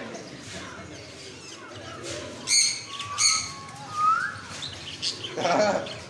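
African grey parrot calling: a few short, sharp whistles and a rising whistle, then a louder, rougher squawk near the end.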